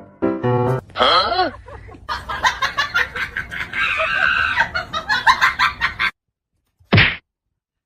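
Chickens clucking and squawking in a busy, excited flurry that cuts off abruptly about six seconds in, followed about a second later by one brief sharp noise.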